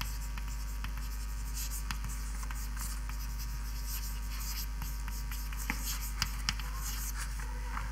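Faint scratching strokes of writing over a steady low hum, with a few light clicks a little before the end.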